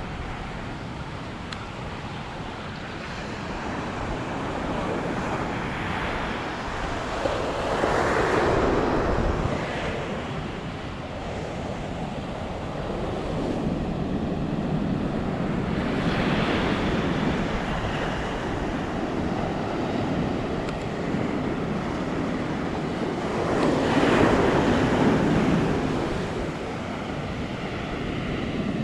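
Ocean surf breaking on a sandy beach, with the wash of the waves swelling and fading about every eight seconds.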